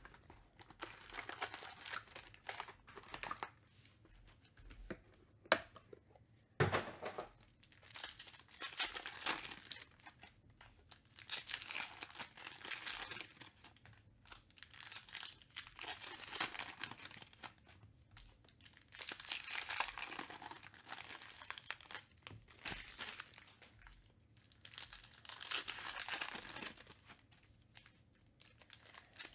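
Foil-wrapped Panini Recon basketball card packs being torn open and their wrappers crinkled, in repeated crackly bursts, with cards handled and stacked between them. A couple of sharp snaps come about five to seven seconds in.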